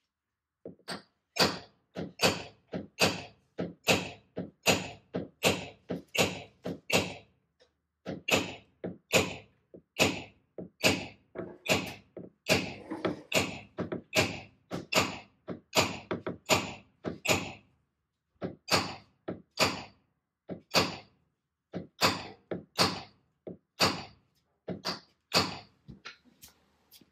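Hammer striking a hand-held tapping tool set against a classic Ford Thunderbird's steel rear quarter panel: sharp metallic taps at about two a second, with a couple of short pauses. The tool is being used to tap down the crowns of an outward wave in the panel during paintless dent repair, with nothing pushing from behind.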